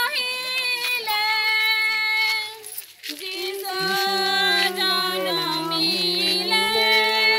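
A group of women's and girls' voices singing together in long held, sliding notes. There is a short pause about three seconds in, after which the song goes on with voices at two pitches.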